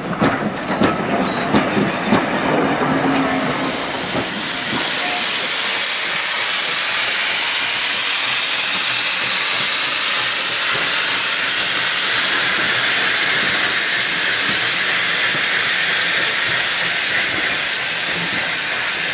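Train wheels clicking over rail joints as coaches pass. About four seconds in, a steam locomotive's steady, loud hiss of escaping steam takes over, easing slightly near the end.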